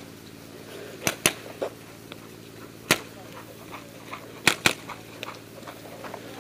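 Five sharp pops like shots: two close together about a second in, one near the three-second mark, and two in quick succession about four and a half seconds in, over a steady low background hum.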